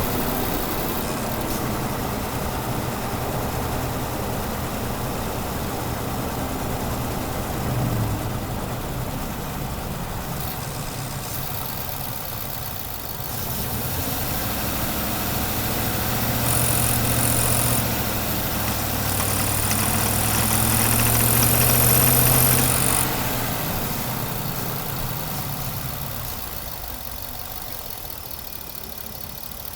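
2018 Ford F-150 V8 engine running, growing louder and slightly higher from about halfway through and dropping away again about three-quarters of the way in.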